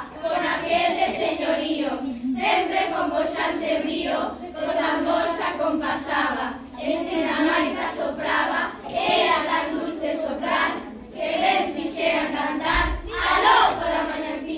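A group of children singing together, in phrases of a second or two with short breaths between.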